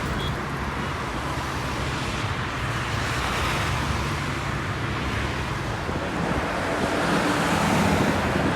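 Steady roadside noise of motor vehicles going by, with wind buffeting the microphone.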